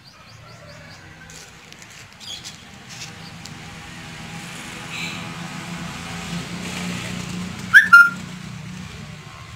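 A motor vehicle's engine hum growing steadily louder over several seconds, as if approaching. A short, loud, high-pitched squeal comes about eight seconds in.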